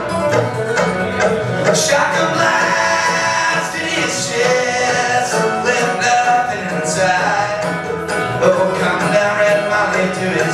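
Acoustic string band of fiddle, guitar, mandolin and bass playing a bluegrass-style song, with a man singing lead over it.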